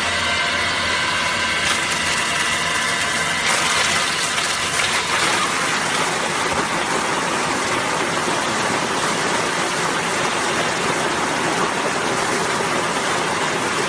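Coconut meat grinding machine running loudly and steadily. Its motor's whine with several steady tones fades out about five seconds in, leaving an even rushing grinding noise.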